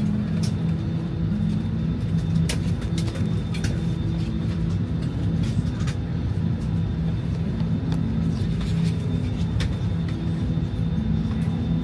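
Steady low drone inside an Airbus A319's passenger cabin before takeoff, with a few faint clicks and knocks scattered through it.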